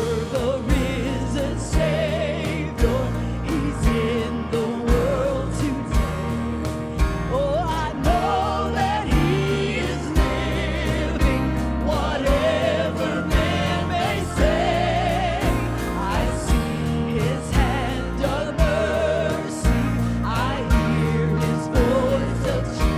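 A woman singing a gospel song solo with vibrato, backed by a live band with piano and drums keeping a steady beat.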